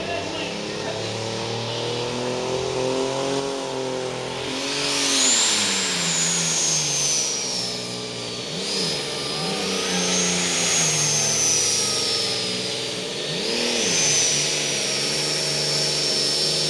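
Competition pulling tractor's engine running at full power down the track, its pitch surging and sagging. A high whine comes in about five seconds in and wavers up and down for the rest of the run.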